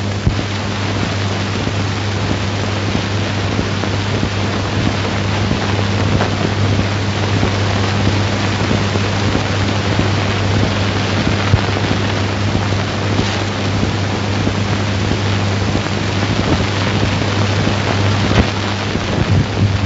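Steady hiss and low hum of an old 1930s film soundtrack, with a few clicks and no speech or music.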